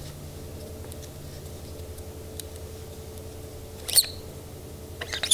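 Small clicks and scrapes of the back cap and bolt being twisted and drawn out of a Planet Eclipse Etha 2 paintball marker, with a sharp click about four seconds in and a quick run of clicks near the end, over a steady low hum.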